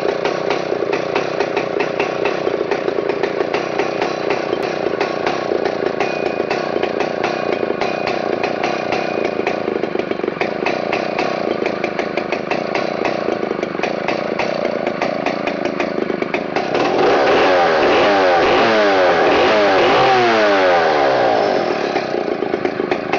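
Stihl 090's big 137cc two-stroke chainsaw engine running steadily with a rapid firing crackle. About two-thirds of the way in it gets louder and is revved up and down several times, then drops off near the end.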